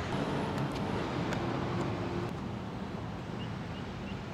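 Steady low outdoor background noise, with a few faint clicks in the first second and a half as plastic push-pin clips are handled and pressed into the bumper's top cover.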